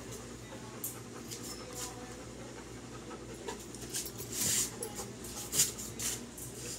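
A dog panting and sniffing right at the microphone: a string of short, irregular hissy breaths, the loudest about four and a half seconds in.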